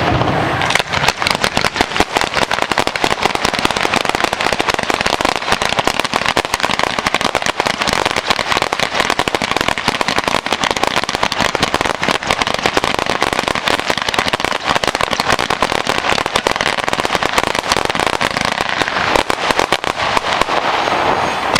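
A fireworks display going off in a dense, unbroken run of sharp crackles and pops with no let-up.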